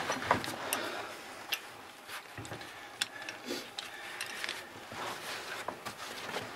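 Irregular light clicks and clinks of metal caving gear handled on a rope: a hand ascender and carabiners being unclipped and moved.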